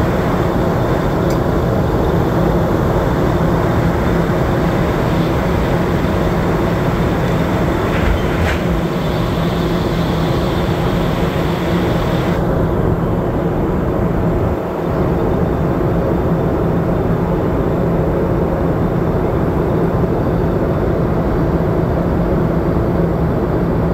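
Steady drone inside the main cargo deck of a Boeing 747-400 freighter in flight: engine and airflow noise with a constant low hum. The higher hiss drops away abruptly about halfway through.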